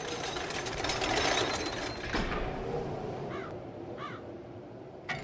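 Roller coaster lift-hill sound effect: a rapid mechanical clacking of the chain lift as the car climbs, swelling for the first second or so and then fading away. Two short warbling chirps come about two thirds of the way through.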